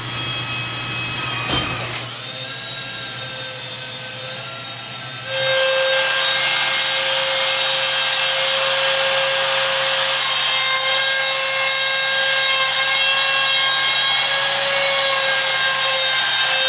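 A quieter steady hum, then about five seconds in an electric motor starts and runs steadily and loudly with a whining tone, cutting off just before the end.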